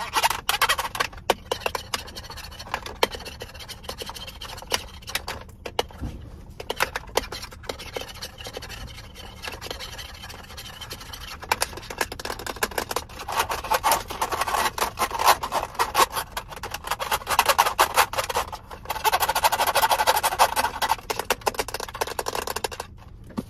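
Fingernails tapping and scratching on a hard plastic object: quick irregular taps, with two longer stretches of steady scratching in the second half.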